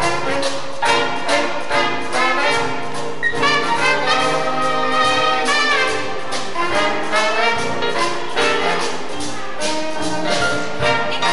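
Live horn band playing a jazz tune: baritone saxophone, sousaphone, trumpet and other horns in ensemble, with held chords about halfway through.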